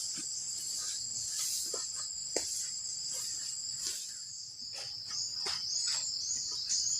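Forest crickets trilling steadily in a shrill, high-pitched chorus, with scattered soft knocks and rustles. From about five seconds in, short repeated chirps join at about two a second.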